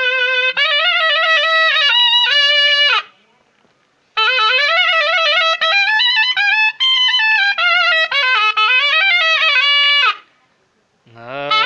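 Solo shehnai playing a traditional Himachali nati folk tune: melodic phrases that bend up and down in pitch, broken by short pauses about three seconds in and again about ten seconds in. Near the end a new, lower held note comes in.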